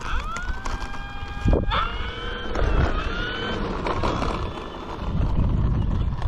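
Electric motor and propeller of an E-flite T-28 RC plane whining as it taxis under throttle: the pitch climbs and levels off near the start, climbs again about a second and a half in, and eases down around three seconds. A low rumble runs underneath.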